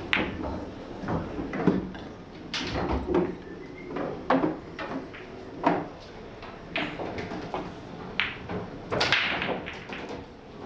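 Billiard balls clacking, a string of sharp, irregular clicks about once a second from play on pool tables, over a low background murmur.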